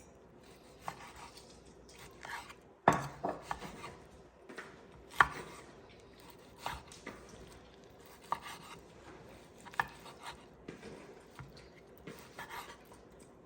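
Knife slicing grilled steak on a cutting board: scattered irregular knocks of the blade on the board, the sharpest about 3 and 5 seconds in.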